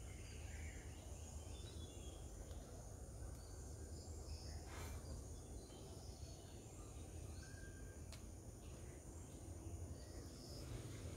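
Faint garden ambience: a steady low rumble with scattered faint, distant bird chirps, and two sharp clicks, about five and eight seconds in.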